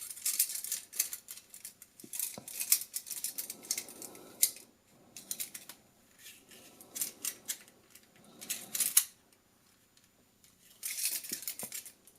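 Die-cast metal toy handcuffs clicking and rattling as they are handled and taken off a wrist, in repeated bursts of sharp metallic clicks, with a short pause near the end.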